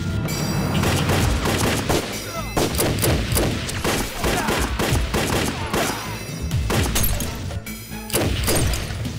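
Rapid gunfire in a firefight, many shots in quick succession starting about a second in, over dramatic soundtrack music.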